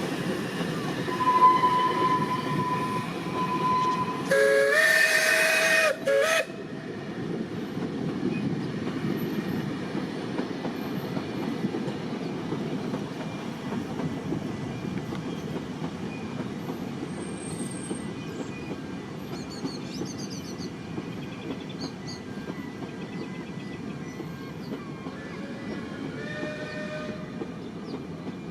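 Narrow-gauge Beyer-Garratt steam locomotive hauling its train, with steady rumbling wheel and running noise. A steady single-pitch whistle sounds first, then the locomotive's steam whistle gives a loud chord-like blast of about two seconds that cuts off suddenly. A fainter whistle follows near the end.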